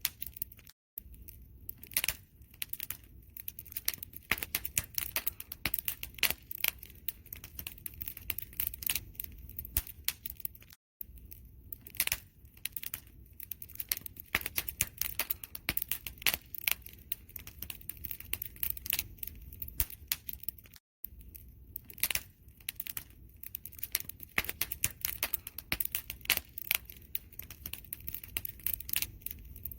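Wood fire crackling: dense, irregular pops and snaps over a steady low rumble. It cuts out briefly to silence about every ten seconds, where the recording loops.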